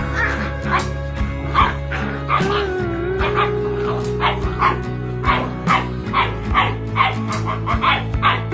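Two Rottweiler-cross puppies barking and yipping at each other over background music, short sharp barks coming a few times a second.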